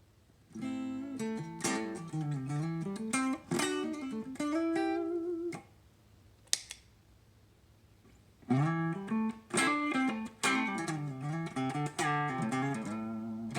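Clean electric guitar, a Gretsch Electromatic through a Bugera T50 Infinium tube amp, playing two phrases of picked notes and chords, the first with the compressor pedal bypassed. A single click falls in the pause between the phrases.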